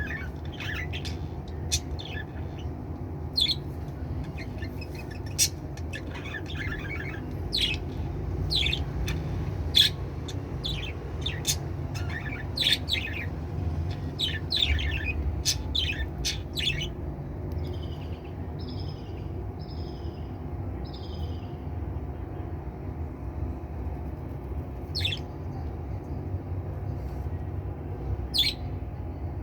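Pet budgerigars chirping, with short sharp calls scattered throughout and a run of four alike calls about two-thirds of the way in, over a steady low background hum.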